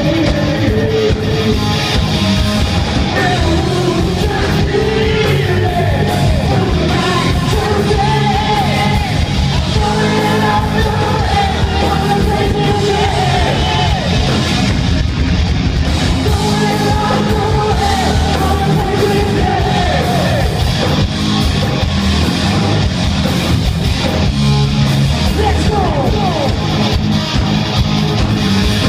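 Live rock band playing loudly with a male lead singer, heard from within the club audience.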